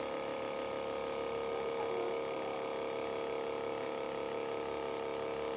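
Small tabletop cotton candy machine running: its electric motor spins the heated sugar head with a steady hum at an unchanging pitch.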